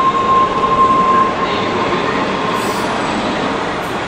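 MBTA Red Line subway train running along a station platform: steady wheel and car noise, with a high, steady squeal that fades out a little over a second in.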